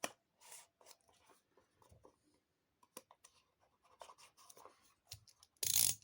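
Fingernail scratching and picking at the seal on a small earphone retail box, with scattered small clicks and rubbing and a louder scrape near the end.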